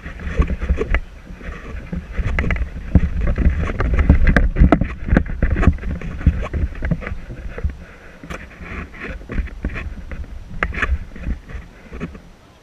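Wind buffeting the camera microphone: a loud, uneven low rumble that swells for a few seconds and then eases, with scattered sharp clicks and knocks over it.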